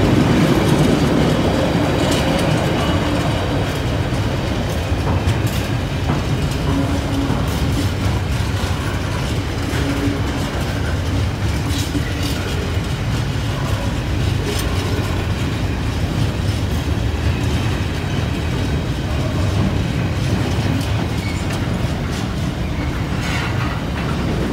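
Freightliner freight train's wagons rolling past at close range: a loud, steady rail rumble with scattered sharp clicks from the wheels on the track.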